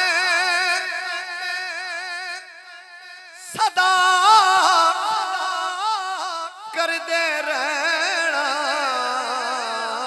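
A man singing a naat, drawing out long melismatic notes with a strong, wavering vibrato. The voice dips and breaks off briefly about three seconds in, then comes back louder.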